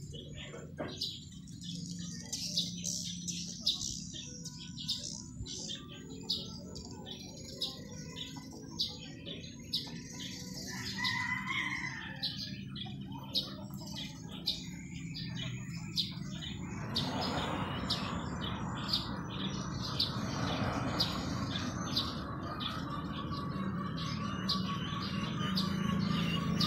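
Small birds chirping over and over, with short, high chirps about once or twice a second. About two-thirds of the way through, a steady rushing noise comes in underneath and grows louder toward the end, with a low hum.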